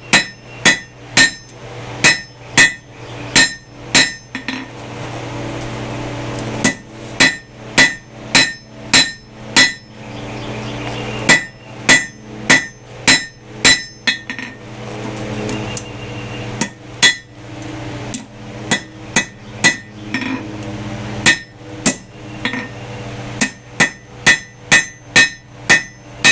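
Hand hammer drawing out hot steel rebar on an anvil: runs of ringing hammer blows, about two to three a second, broken by short pauses. A steady low hum fills the gaps between runs.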